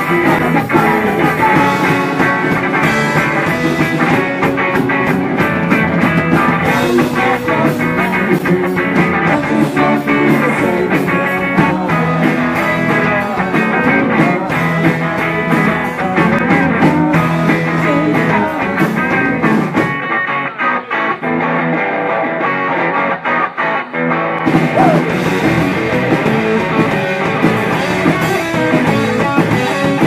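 Live psychedelic rock band playing electric guitars, Vox Jaguar organ and drum kit. About two-thirds of the way through, the drums drop out for about four seconds, leaving guitar and organ, then the full band comes back in.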